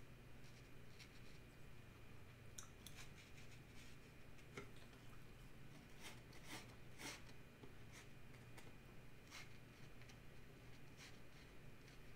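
Faint, near-silent dabs and strokes of a small watercolour brush on paper: a scattering of light short ticks, a few more of them about six to seven seconds in, over a low steady hum.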